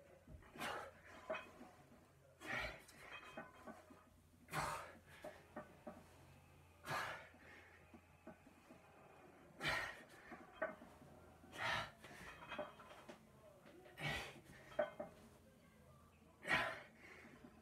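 A man breathing hard under a barbell, with a forceful breath every two to two and a half seconds as he works through repetitions. A low steady hum runs underneath.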